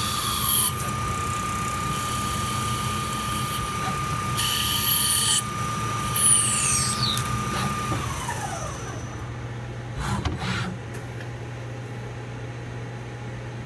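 CNC lathe turning acetal: the spindle runs with a steady whine while the tool makes several short high-pitched cutting passes. About eight seconds in the whine falls in pitch as the spindle spins down, a couple of knocks follow around ten seconds, and a low machine hum carries on.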